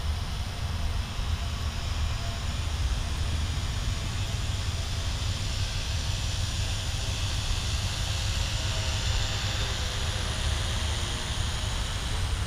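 Wind rumbling on the microphone, with the faint, wavering buzz of a small quadcopter's propellers as the Vivitar AeroView circles overhead.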